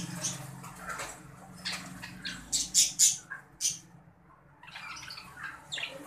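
Budgerigars chirping and squawking, with a run of short, sharp, loud calls about halfway through, then a brief lull before softer chatter resumes.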